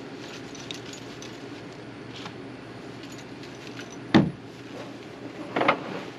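A canoe being flipped over by hand onto the grass: a heavy hollow thump of the hull about four seconds in, then a second clatter of knocks near the end. A few light clicks of handling come before.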